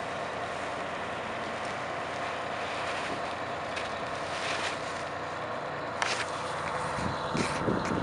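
Detroit Diesel 6V92T two-stroke V6 of a Spartan Gladiator fire engine idling steadily, with a few brief clicks in the second half.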